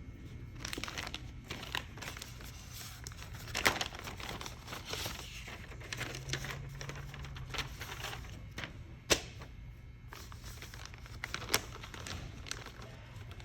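Rustling and handling noise with scattered sharp clicks and knocks, three of them loud, like tools and parts being picked up and set down on a bench.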